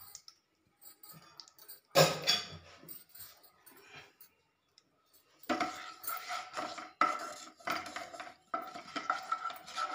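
Kitchen utensils against a non-stick kadhai: one sharp clank about two seconds in, then from about halfway a wooden spatula scraping and stirring around the pan in repeated strokes, the pan ringing faintly with each stroke.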